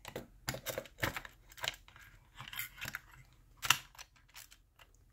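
Separate sharp clicks and light knocks from a Mamiya RZ67 120 film insert being handled as its empty spool is moved and snapped into the take-up side. The loudest click comes about three and a half seconds in.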